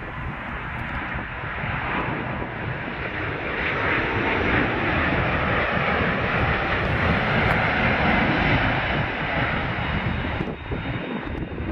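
Engine noise of a FedEx cargo plane coming in to land. It swells as the plane passes, is loudest in the middle, and eases off near the end.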